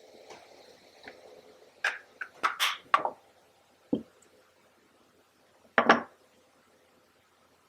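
Sharp clinks and knocks of hard objects being handled and set down: a quick cluster of about five, then two single knocks spaced apart.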